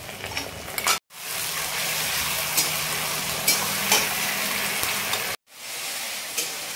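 Spice paste and onions sizzling as they fry in oil in an aluminium kadai, stirred with a flat metal dosa turner that scrapes and clicks against the pan now and then. The sound cuts out abruptly twice, about a second in and again near the end.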